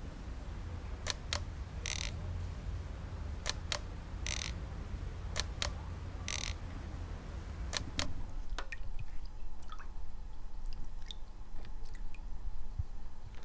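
Plastic toy camera shutter clicking several times, with short rasps of film winding, over a low outdoor rumble. About eight seconds in this gives way to faint liquid sloshing and dripping as a photographic print is rocked in a darkroom developing tray.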